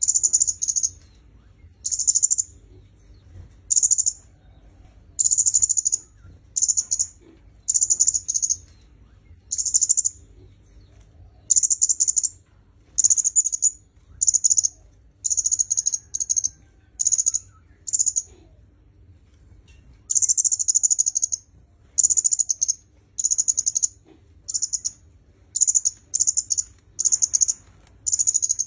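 Kemade kepala merah (red-headed kemade) calling: high, thin, trilled chirps, each about half a second to a second long, repeated every one to two seconds. There is a longer pause of about two seconds partway through.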